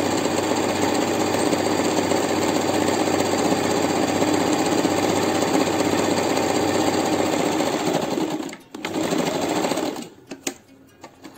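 Usha Janome electric sewing machine running steadily at speed, stitching a seam through fabric. It breaks off briefly near the end, runs again for about a second, then stops, leaving a few faint clicks.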